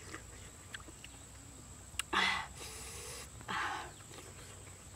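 A person eating: a sharp click about two seconds in, then two short breathy mouth sounds about a second and a half apart, the first the louder.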